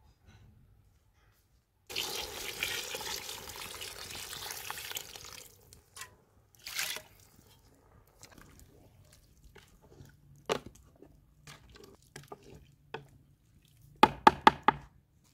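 Water poured from a copper jug into a large steel pot of stew: a steady splashing pour lasting about three and a half seconds, with a shorter splash a little later. Near the end comes a quick run of about five sharp knocks, the wooden ladle striking the pot.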